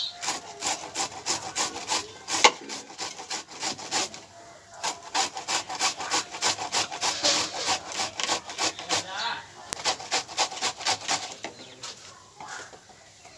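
Food being grated by hand on a metal box grater over a plate: rapid rasping strokes, about three a second, with a short pause about four seconds in, tailing off near the end.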